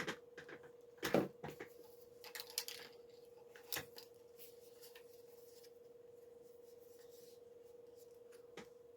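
A few scattered clicks and clunks of handling, the loudest about a second in, over a faint steady hum.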